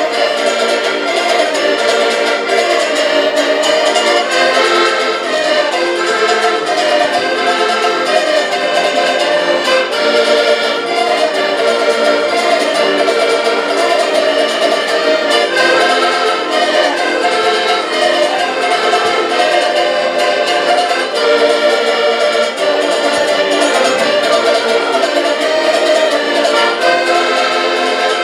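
Ensemble of five Portuguese concertinas (diatonic button accordions) playing a folk tune together in sustained chords and melody, with a small plucked string instrument.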